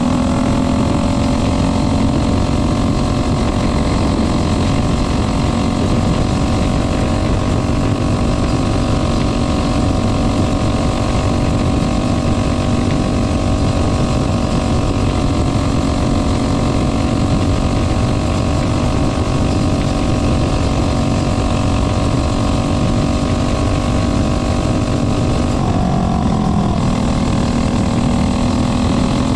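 Racing kart engine running hard at steady, high revs through laps of the track, over a constant rushing noise. About 26 seconds in, the pitch dips briefly and then climbs back.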